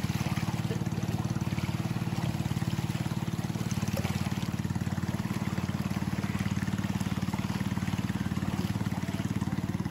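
A boat's engine running steadily at cruising speed, with a fast, even beat, over the rush of water and wind as the boat cuts through the waves.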